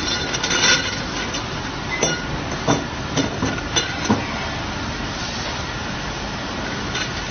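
Steady whir and hiss of a running automatic-feeding copper tube laser cutting machine, with a few sharp metallic clinks of cut copper tube pieces knocking together in the first half.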